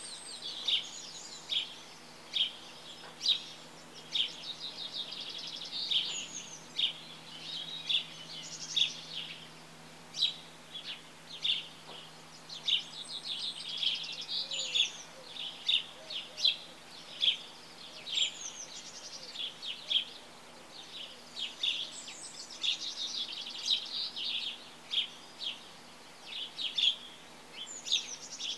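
Birds chirping: many short, high chirps in quick clusters, coming again and again, over a faint steady low hum.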